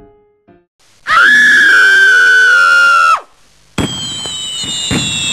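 Sound effects: a loud, held, high-pitched shriek lasting about two seconds. After a short pause comes a whistling tone that slowly falls in pitch, broken by several sharp pops.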